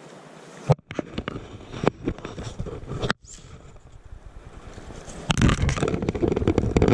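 Knocks, scrapes and crackles of the camera being handled and swung down, then, from about five seconds in, a loud rush of river water and wind close to the camera held at the water's surface.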